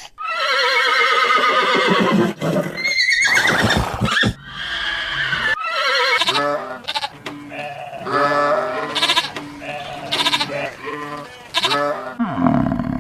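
Several different farm animal calls one after another: a long call falling in pitch, then a high wavering call, then a string of shorter repeated calls.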